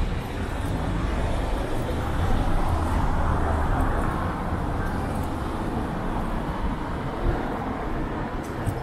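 City street traffic noise: a motor vehicle passing close by, its engine and tyre noise swelling to a peak a few seconds in and then easing back to a steady traffic hum.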